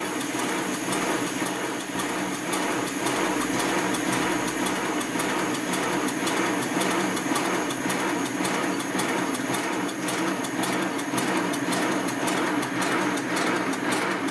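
Miniature live steam locomotive's cylinders and motion running with its wheels spinning off the rails, giving a steady rhythmic beat of a few strokes a second over a steady hum.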